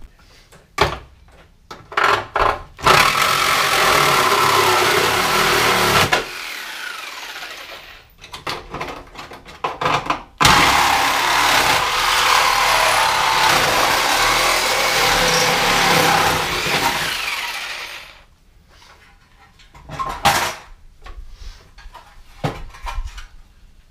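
Reciprocating saw cutting through the car's steel front-end sheet metal: two long runs of cutting, one of about three seconds and a longer one of about seven seconds, with short bursts and knocks between and after them.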